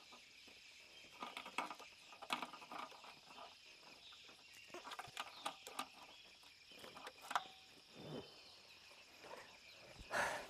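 Quiet outdoor ambience with a steady high insect chorus, scattered rustling and footstep-like clicks, and a louder rustle near the end.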